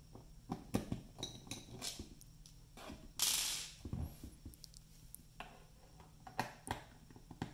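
Scattered small clicks and taps of a screwdriver backing T15 screws out of the plastic case of a Nonin 7500 pulse oximeter monitor, with a brief scrape about three seconds in as the monitor is slid and turned on the stone countertop.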